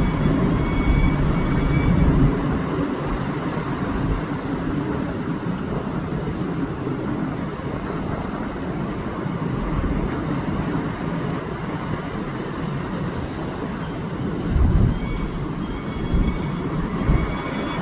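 A steady, rumbling noise like passing vehicles or a train, with faint high whistling tones near the start and again near the end.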